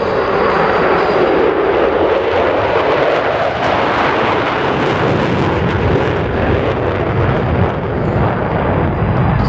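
Loud, steady jet noise from Blue Angels F/A-18 Super Hornets flying in the demonstration.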